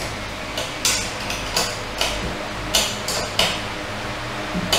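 Steel spanners clinking against a nut and washer as the nut is tightened onto a 6 mm threaded rod: several short, sharp metallic clinks at irregular intervals.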